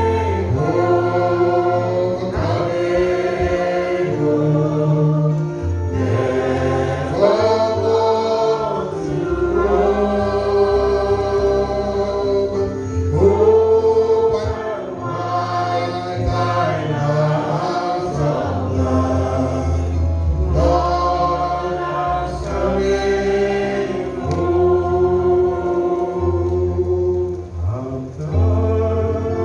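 Choir and congregation singing a slow gospel hymn with held notes, over a steady instrumental bass accompaniment.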